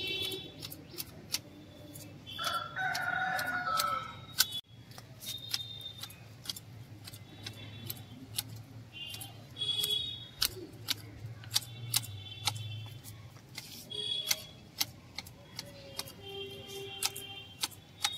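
Manual hedge shears snipping a conifer shrub, the blades clicking shut over and over at an uneven pace. A rooster crows once about two and a half seconds in.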